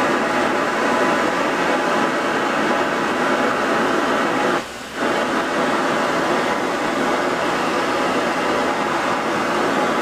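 Oxy-fuel torch on a Linde CM-75 Cadet track cutting machine, hissing steadily at the steel plate, with one brief drop in level about halfway through.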